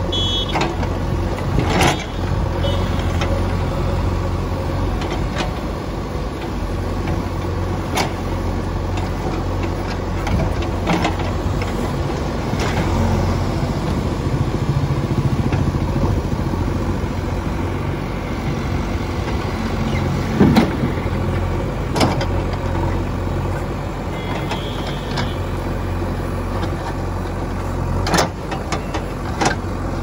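JCB backhoe loader's diesel engine running steadily while the backhoe bucket works the gravel, with several sharp clanks and knocks from the arm and bucket, the loudest about twenty seconds in.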